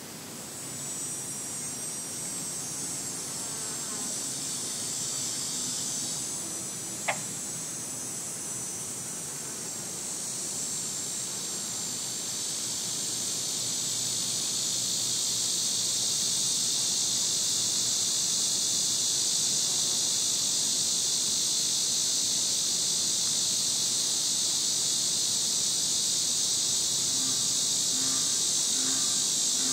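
Cicada calling: a steady, high, buzzing drone that swells in loudness over the first half and then holds. A single sharp click about seven seconds in.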